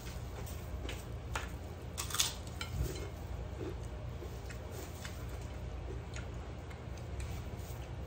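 Eating by hand: kerupuk crackers crunched and food picked from a plate, with a few sharp crunches and clicks, loudest about two seconds in, over a steady low hum.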